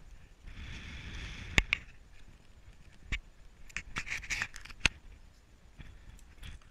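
Wind on an outdoor camera microphone, a rumbling hiss that comes and goes in the first two seconds, followed by a run of sharp clicks and knocks through the middle and later part.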